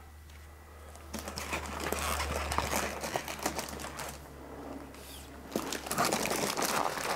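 Plastic wrapping crinkling as hands grip the plastic-wrapped safe in its cardboard box, in two stretches with a short lull in between.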